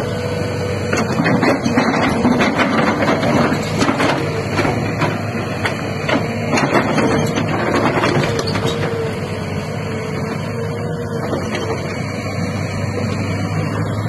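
A Kobelco 210 crawler excavator's diesel engine runs steadily under hydraulic load with a constant whine. For roughly the first two-thirds there is a run of clattering knocks as the bucket dumps soil and stones onto the pile. After that only the steady running is left as the machine slews.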